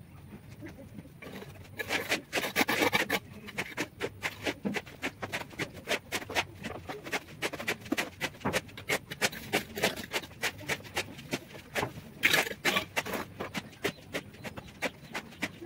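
Bricklaying by hand: bricks being set onto a mortar bed, with scraping and a steady run of sharp taps and knocks about two to three a second, and denser scraping about two seconds in and again near the end.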